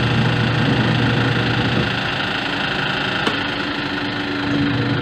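Twin-tub washing machine with its spin-dryer motor and wash motor both running: a steady motor hum and whirr as the spin basket wrings out the load near the end of its timed spin. A short click sounds about three seconds in.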